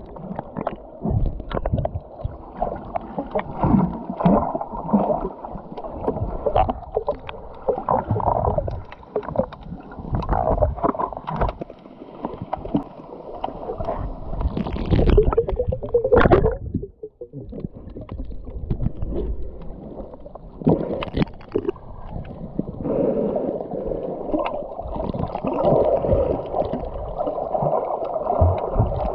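Water sloshing and gurgling close around the microphone, muffled, with many small irregular splashes and knocks, as when a camera is carried by someone swimming at the surface.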